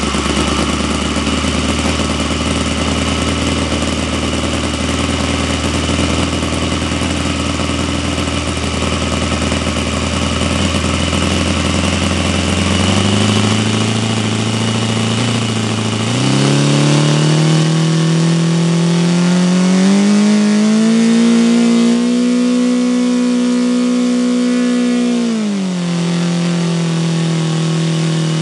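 Saito FA-120 R3 three-cylinder four-stroke glow radial model engine running on a bench with its propeller: it runs steadily at low speed, is opened up in steps about halfway through to a high, even run, and is throttled back down near the end.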